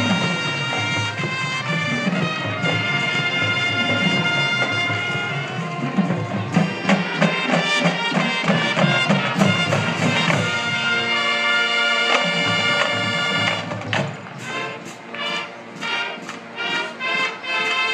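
High school marching band playing a field show: brass and woodwinds hold long chords over drums. From about fourteen seconds in the music turns quieter and is cut into short accented hits, about two a second.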